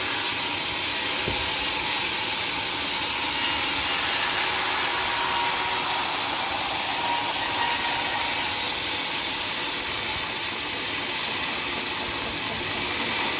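Sawmill saw running steadily as it cuts through a log, an even noisy sound with no break.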